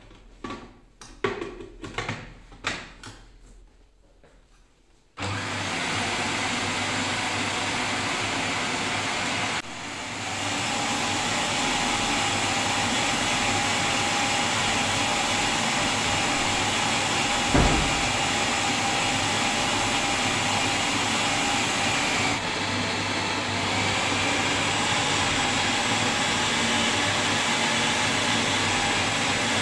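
Usha food processor's electric motor starting abruptly about five seconds in and running steadily at high speed, its blade cutting chickpea greens fed through the chute. Before it starts there are several sharp knocks, and the running sound dips briefly about ten seconds in and again about twenty-two seconds in, with a single thump near eighteen seconds.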